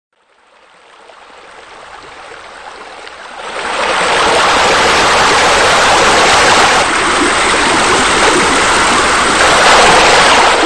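Waterfall splashing into a pool: a steady rush of water that fades in, grows much louder about three and a half seconds in, and cuts off abruptly at the end.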